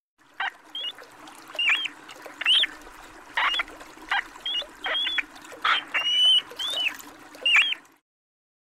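Muskrat squeaking: about a dozen short, high squeaks at irregular intervals, each rising and then dropping sharply in pitch, over a steady low hum.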